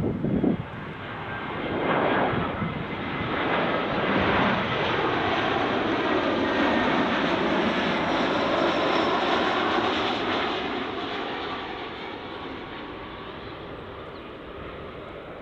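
Airliner on short final flying over, its engines at approach power. The sound swells, sweeps in pitch as the aircraft passes, then fades away. A louder low rumble cuts off about half a second in.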